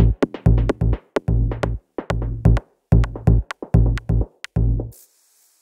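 Electronic music with a drum-machine beat of low thumps and sharp clicks, cutting off suddenly about five seconds in, leaving a faint hiss.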